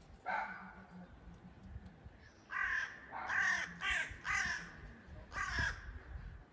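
A bird calling: one call just after the start, then five more calls from about two and a half seconds in, spaced roughly half a second to a second apart.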